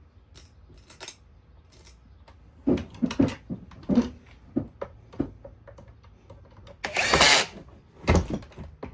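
Small plastic clicks and knocks as screws and parts are handled, then a power drill/driver running in two short bursts near the end, driving screws into the vacuum's plastic housing.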